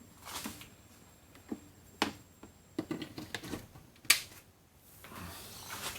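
Scattered sharp clicks and knocks of a power lead and plug being handled and pushed into a socket, the loudest about two seconds and four seconds in; the bench grinder's motor is not running.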